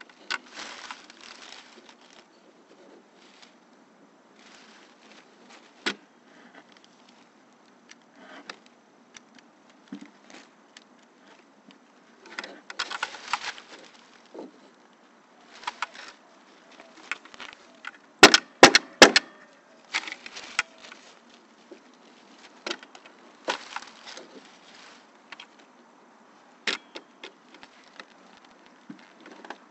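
Pneumatic nail gun on an air hose firing a quick run of about five sharp, loud shots within about a second, partway through. Around it come scattered shorter scuffs and clicks of the tool and wood being handled.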